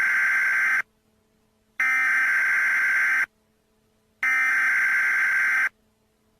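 Emergency Alert System SAME header tones: harsh, screechy digital data bursts, one ending just after the start and two more each about a second and a half long, separated by about a second of quiet. The repeated header burst marks the start of a new alert message.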